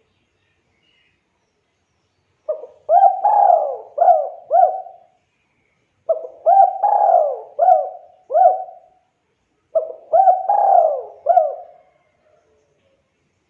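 Spotted dove (tekukur) cooing: three loud phrases of four or five notes each, a few seconds apart, the notes flicking up at their starts.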